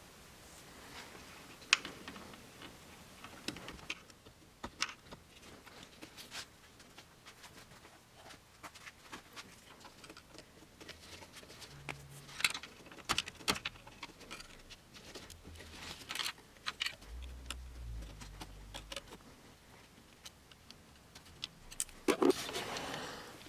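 Scattered light clicks and taps of hand tools and small parts at the radiator's transmission cooler line fitting, with a brief low rumble a little past the middle and louder handling noise near the end.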